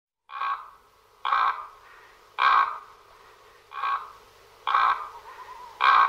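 Common raven (Corvus corax) calling: six short calls, about one a second.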